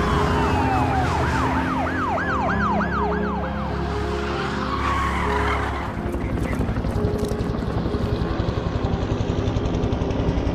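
Police car siren in a fast yelp, rising and falling about three times a second over a low engine rumble, dying away after about three and a half seconds. From about six seconds a fast, even chopping pulse takes over, like a helicopter's rotor.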